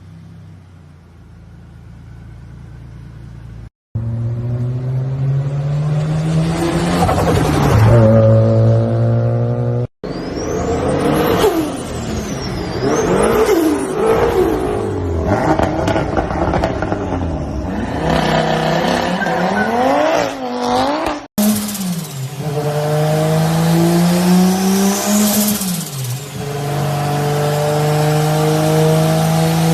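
Turbocharged car engines revving up and dropping off in several separate clips that cut abruptly from one to the next, with a high whine gliding up and down with the revs.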